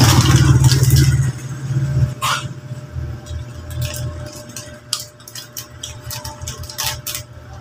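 Crinkling and crackling of a small plastic snack packet being handled and worked open, as a string of short sharp crackles. A low rumble fills the first second or so, then fades.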